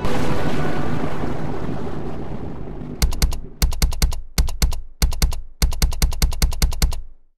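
A cannon fires a single shot, its boom dying away over about three seconds. Then come quick groups of sharp keystroke clicks, typing-style, that stop abruptly near the end.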